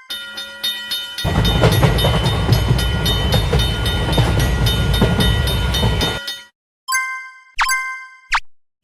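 Railroad crossing warning bell clanging at about three strikes a second. About a second in, a train rumbles past over the bell, and both cut off abruptly after about six seconds. A few more bell strikes come near the end.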